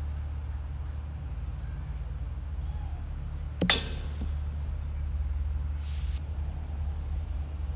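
A pitched baseball hits the chain-link fence a little over three and a half seconds in: one sharp smack with a brief metallic rattle. A steady low rumble lies underneath.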